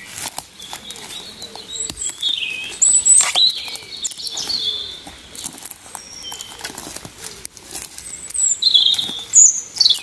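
Footsteps crunching through dry twigs and leaf litter, with sticks and brush crackling, and songbirds chirping overhead. The bird calls are high, gliding chirps, loudest about three seconds in and again near the end.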